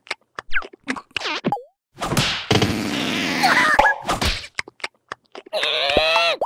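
Cartoon slapstick sound effects and wordless character vocals. Short gliding vocal sounds from the cartoon larvae come first. About two seconds in, a long noisy stretch of whack and impact effects follows, as the red larva is knocked to the ground. Near the end comes a pitched vocal cry.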